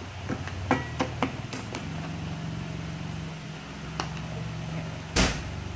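Wooden spatula stirring crab, squash and malunggay leaves in a nonstick pan, giving scattered clicks and scrapes against the pan, with one louder knock about five seconds in, over a low steady hum.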